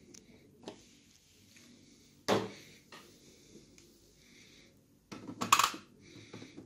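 Handling noises on a new Epson ink-tank printer in its plastic wrapping: a single knock about two seconds in, then a short run of clicks and rustles near the end.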